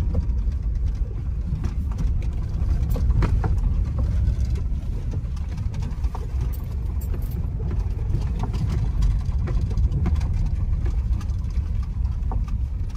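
Inside a vehicle's cabin while it is driven slowly over a dirt forest track: a steady low engine and road rumble, with scattered small clicks and knocks.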